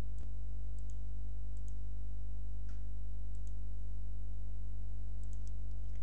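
Steady low electrical hum, with a few faint, scattered clicks.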